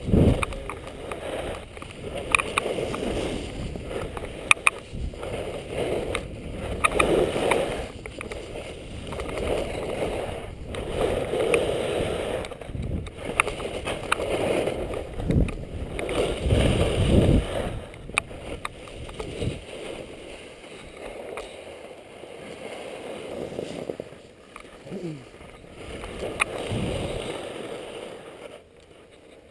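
Skis or snowboard sliding and carving down a snow piste, heard from a helmet-mounted camera: a rushing, scraping noise that swells with each turn every couple of seconds, with a few sharp clicks, growing quieter in the last third.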